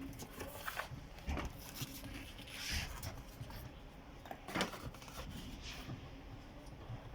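A few soft knocks and light rattles, spaced a second or more apart, from the dishwasher's door and wire racks being handled.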